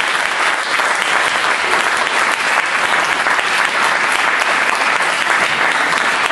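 Audience applauding, a dense, steady clapping that does not let up.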